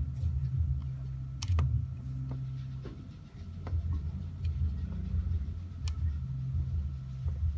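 A low, steady rumble like an engine running, with a few sharp clicks over it.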